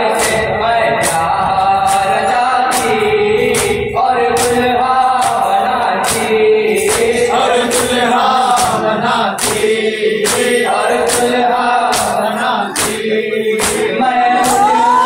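Male voices chanting a noha, a Shia lament, in chorus, with sharp rhythmic slaps about twice a second from chest-beating (matam) keeping the beat.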